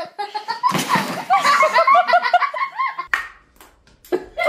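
A person laughing: a sharp breathy outburst about a second in, then a quick run of repeated pitched "ha" pulses that stops about three seconds in, and the laughing starts up again near the end.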